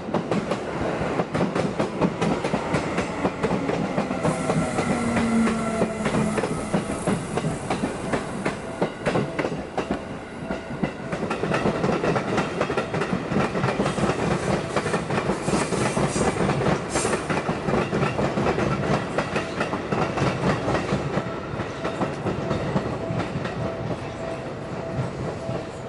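Electric commuter trains passing a railway level crossing, wheels clacking over the rail joints. One train goes by, the sound eases briefly about ten seconds in, then a second train passes. The crossing's warning bell rings steadily throughout.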